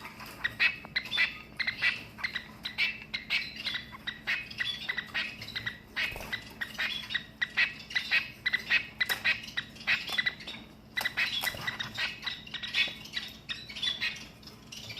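Shaft-tailed finches calling: a rapid, unbroken string of short, high calls, several a second, including the male's crow-like courtship call.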